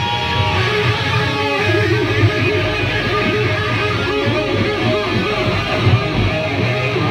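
Live rock band playing loud, with electric guitars over drums, heard from the crowd.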